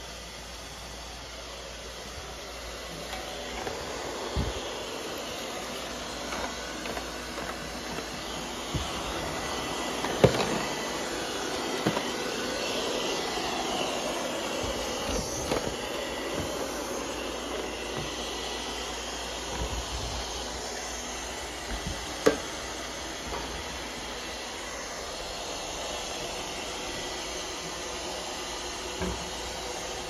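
Robot vacuum cleaner running on a wooden floor: a steady whirring hiss from its fan and brushes, louder for a while in the middle, with a few sharp knocks, the loudest about ten seconds in and again about twenty-two seconds in.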